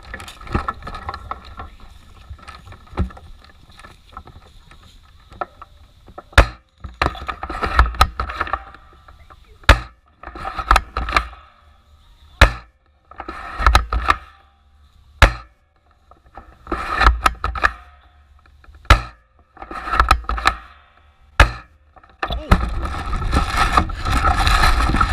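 Airsoft rifle shots: about six sharp snaps a few seconds apart, each with a short rustle or clatter of the gun being handled. A steady rush of wind on the microphone starts near the end.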